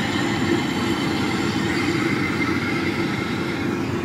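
World WD115PRO rice combine harvester running steadily while harvesting: a continuous, even mechanical hum of engine and threshing machinery.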